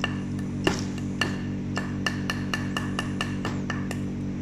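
A metal door-lock cylinder rapped repeatedly against a wooden block: sharp taps with a brief metallic ring, a few spaced ones, then quickening to about four or five a second. With a hairpin tensioning the keyway, the knocks jar the pins so the plug can be turned without its key.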